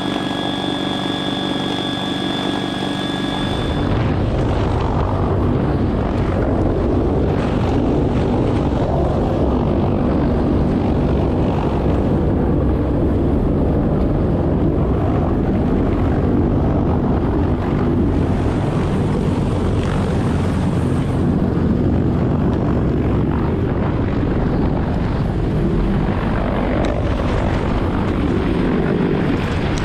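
CH-53 heavy-lift helicopter running: for the first few seconds it is heard from inside the cargo cabin, with steady high-pitched whines over the engine rumble. From about four seconds in, a louder, denser roar of the rotors and their downwash beneath the hovering helicopter, steady for the rest of the time.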